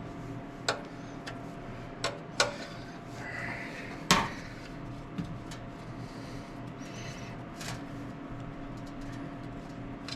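Metal hand tools clanking: a wrench or socket knocking against metal in several sharp, irregular clanks, the loudest about four seconds in, over a steady low hum.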